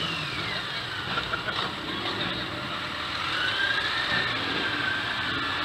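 Motorcycle engines running as bikes ride slowly past close by, the engine pitch falling at first and rising again about three seconds in.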